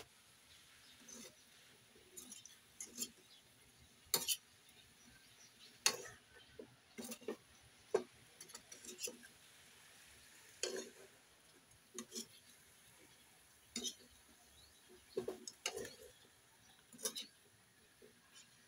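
Metal spatula scraping and clinking against a steel wok while vegetables are stir-fried, in irregular strokes roughly once a second.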